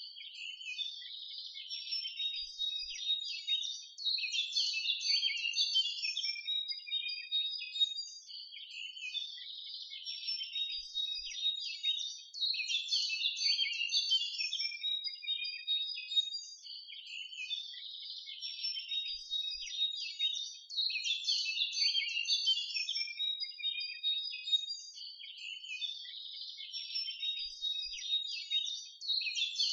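Birds chirping in a recording that repeats about every eight seconds: a looped birdsong track.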